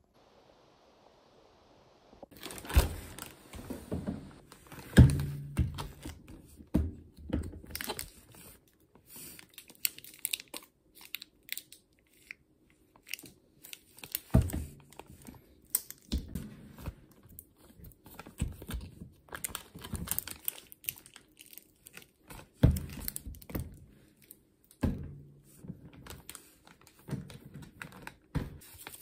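Plastic zip-top bag crinkling and rustling as it is handled and held open, with irregular knocks and clacks of bottles and jars, starting about two seconds in.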